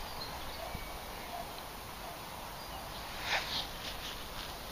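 Fingers scraping and crumbling damp soil around a buried coin, one brief scratchy rustle about three and a half seconds in, over a quiet outdoor background.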